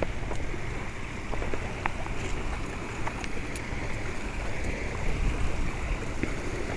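Wind buffeting the camera microphone: an uneven low rumble under a steady hiss, with a few faint ticks.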